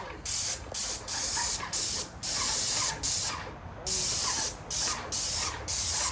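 Paint being sprayed in a quick series of short bursts of hiss, about ten in a row, each cut off as the spray is released.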